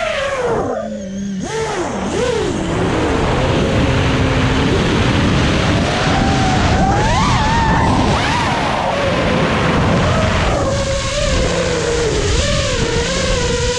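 Brushless motors and propellers of an FPV freestyle quadcopter whining, the pitch swooping up and down with the throttle, over a rush of wind and prop wash, heard from the drone's onboard camera. Near the end the whine settles to a steadier pitch.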